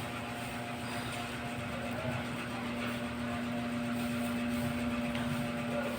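Steady machine hum with one low, even tone throughout.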